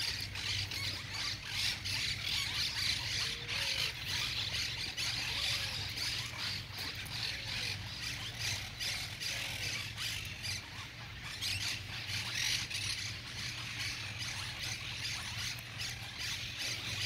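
Outdoor ambience of birds squawking and chirping over a steady high-pitched hiss, with a low steady hum underneath. A few faint short calls come about two seconds apart partway through.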